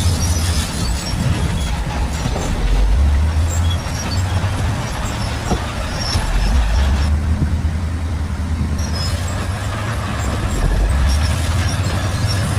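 Shantui bulldozer's diesel engine working hard, its deep note swelling and easing several times as the load comes on and off.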